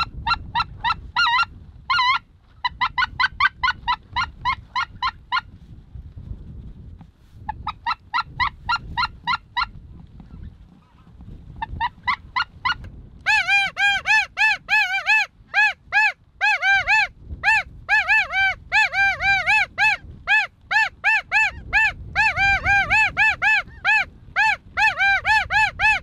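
Rapid runs of high, clipped goose honks, each a quick rise and fall in pitch. They come in short bursts for the first ten seconds, then run almost without a break through the second half.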